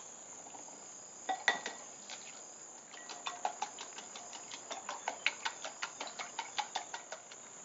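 Wire whisk beating eggs in a glass bowl: quick clicks of the wires against the glass, about four a second, from about three seconds in. A couple of sharp knocks come about a second and a half in, and insects chirp steadily throughout.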